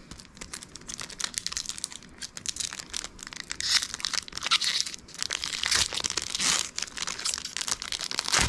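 Foil wrapper of a trading card pack crinkling and tearing as it is opened by hand: a dense, continuous run of crackles.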